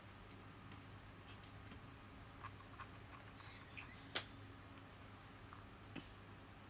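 A few light taps on an iPad touchscreen while drawing. They come irregularly, and the sharpest and loudest is about four seconds in.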